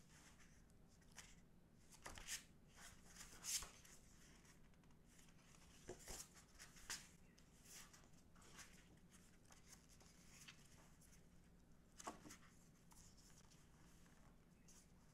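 Faint paper handling: the glossy pages of a photobook flipped and rustled by gloved hands, with a few sharper page flicks about two, three and a half, six to seven and twelve seconds in.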